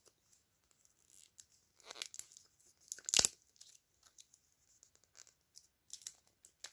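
Small blind-pack toy wrapper being torn open and crinkled between the fingers, in short scattered rustles, the loudest about three seconds in.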